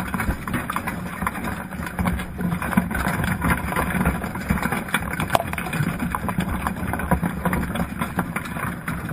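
Underwater sound picked up by a GoPro in its waterproof housing inside a submerged crab pot: a steady low hum under dense crackling and frequent sharp clicks.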